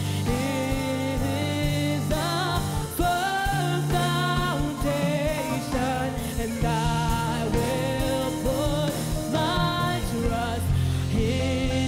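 A girl sings a worship song into a handheld microphone, her voice wavering and sliding between notes, over instrumental accompaniment with held low notes.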